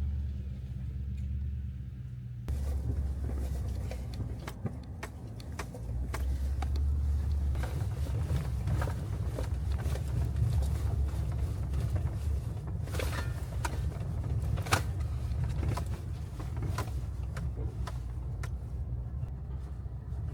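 Vehicle driving: a steady low rumble of engine and road noise with scattered knocks and rattles, louder after a cut about two seconds in.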